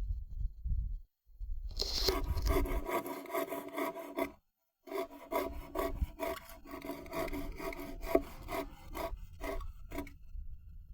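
Hand saw cutting through wood, with quick back-and-forth strokes that slow and spread out towards the end.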